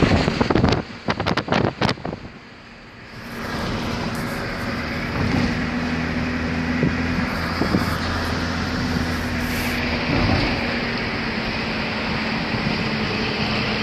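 Car driving along a road, its tyre, wind and engine noise heard from inside the cabin as a steady rush with a low hum. A few clicks and knocks in the first two seconds, followed by a briefly quieter moment.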